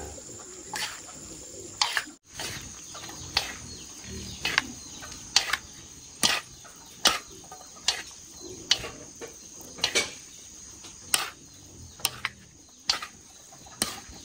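Chopsticks and a wooden spatula knocking against a metal wok as noodles are tossed and stirred: sharp irregular clicks about once a second. A steady high-pitched insect-like trill runs underneath.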